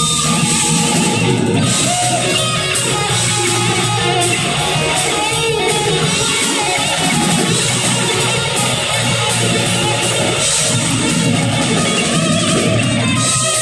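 Live rock band playing loud and without a break: electric guitar over bass guitar and a drum kit with cymbals.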